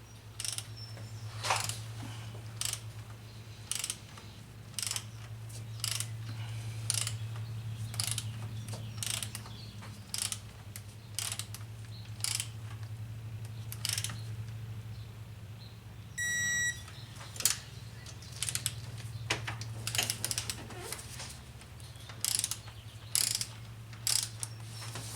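Hand ratchet clicking in short bursts, about one a second, as bolts are run down on the cylinder head of a Chevy 5.3L V8, over a steady low hum. A short electronic beep sounds about two-thirds of the way through.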